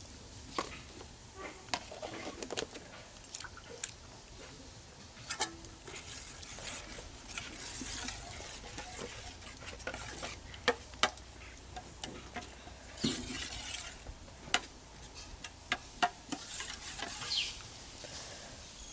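Scattered clinks and knocks of a metal ladle and spoon against bowls and steel pots, with brief stirring and sloshing of liquid.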